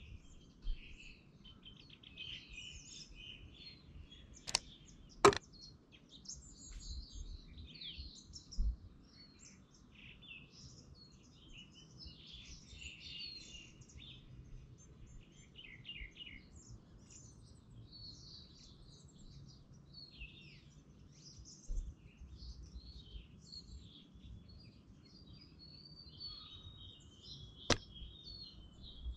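Birds chirping and singing continuously over a faint low background hum. A few sharp clicks cut in, twice close together about five seconds in and once near the end.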